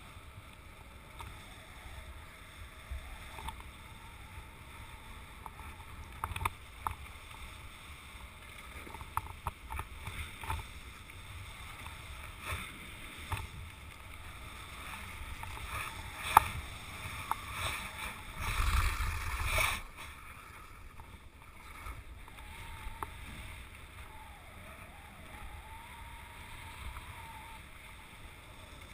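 Wind buffeting the microphone of a body-worn camera on a moving kite-skier, a steady rumbling hiss. Scattered clicks and knocks come through it, one sharp knock falls a little past halfway, and a stronger gust follows shortly after.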